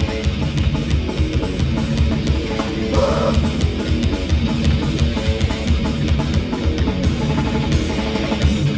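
A live hardcore band plays an instrumental passage: distorted electric guitars, bass and a driving drum kit, loud and dense, with no vocals.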